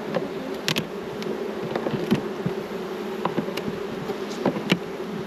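Honey bees buzzing in a steady, dense hum around an opened hive, with a few short sharp clicks and knocks scattered through it.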